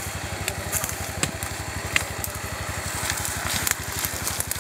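ATV engine idling with a fast, steady putter, while dry twigs and brush crackle and snap now and then under footsteps in the undergrowth.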